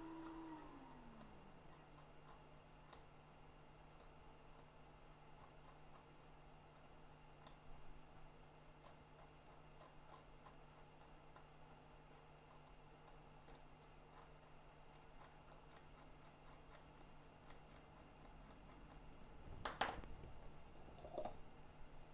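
Near silence: workbench room tone with a low steady hum and faint scattered ticks. A steady tone drops in pitch and fades away in the first second or so. Two brief louder handling noises come near the end.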